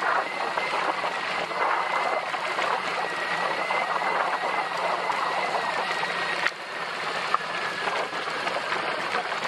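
BMW R1200 GS boxer-twin motorcycle riding a rough off-road track, its engine and knobbly tyres mixed into a heavy rush of wind over the microphone, with a thin steady whine. There is a sharp knock about six and a half seconds in.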